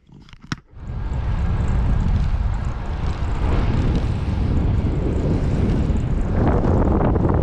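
Wind rushing over the microphone of a camera on a moving road bike: a loud, steady rush that sets in about a second in, after two short clicks.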